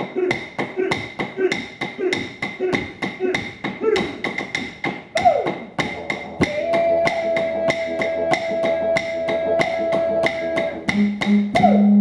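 Aboriginal dance music: clapsticks beating a steady rhythm about four times a second under chanting voices with sliding calls. About halfway through, a long held tone joins for some four seconds, over a low hum.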